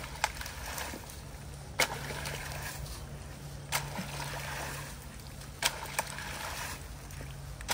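Long-handled tool jabbed and raked through shallow flood water and soaked leaves, sloshing and scraping, with a sharp knock about every two seconds as each stroke lands.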